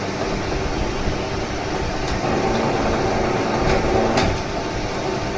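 Electric wire stripping machine running as 1 mm single-core wire is fed through and its insulation stripped, with a few sharp clicks a little past the middle.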